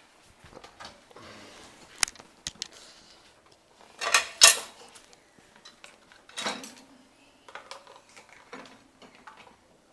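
Metal cutlery and dishes clinking and clattering as they are taken out of a dishwasher, in scattered knocks with the loudest clatter about four seconds in.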